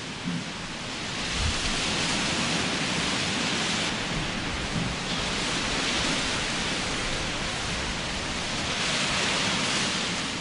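Heavy rain and gusting wind of a violent storm: a steady hiss that swells and eases in waves, with a low thud about a second and a half in.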